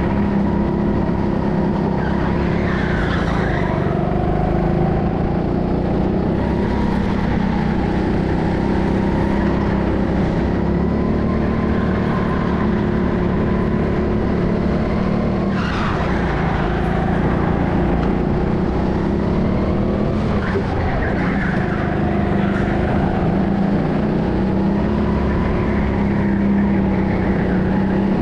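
Go-kart engine running steadily at racing speed, its pitch rising and dipping slightly, with the tyres squealing briefly several times.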